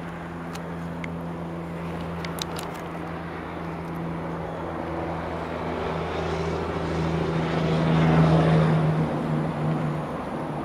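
A steady, low-pitched engine drone that grows louder to a peak about eight seconds in, then eases off.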